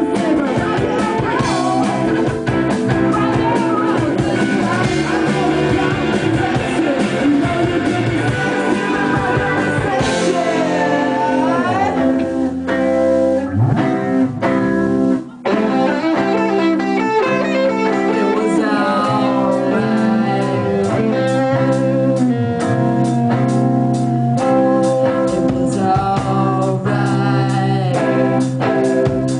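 Live rock band playing, led by guitar, with a brief cut-off about halfway through before the music carries on.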